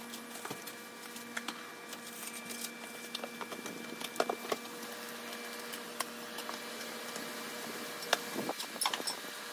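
A cardboard speaker box being slit open and its cardboard packing handled: scattered sharp clicks and short scrapes, with a few louder ones around four to four and a half seconds in and again near the end. A steady faint hum of a few fixed tones sits underneath.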